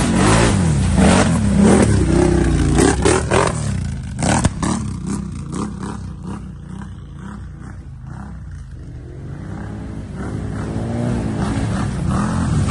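Off-road vehicle engine revving hard through mud, with sharp cracks over it in the first few seconds. The engine note then drops back and builds again with rising revs near the end.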